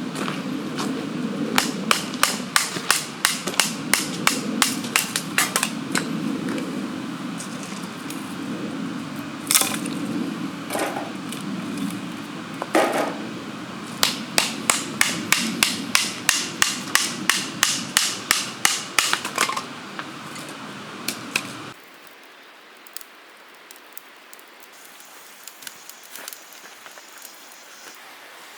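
Hammer striking repeatedly with sharp, ringing blows, about three to four a second, in two long runs with a pause between. A steady low hum runs underneath and cuts off suddenly with the last blows about three quarters of the way through.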